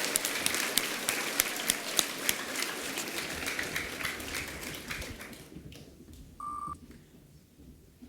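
An assembly hall full of school students applauding, the clapping dying away over about five seconds. About six and a half seconds in comes a short single-pitched beep.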